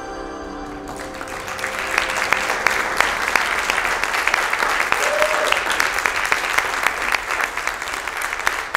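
Audience applauding: music stops about a second in and the clapping swells into loud, dense applause that carries on.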